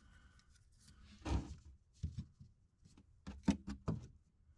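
A few light clicks and knocks of parts being handled, with a short rustle about a second in and a quick cluster of clicks near the end.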